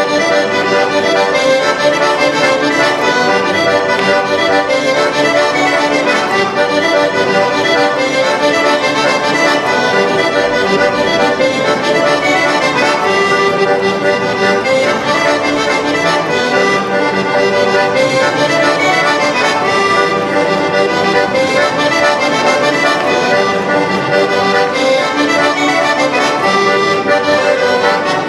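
Dino Baffetti organetto (diatonic button accordion) played solo, a traditional tune running on without a break.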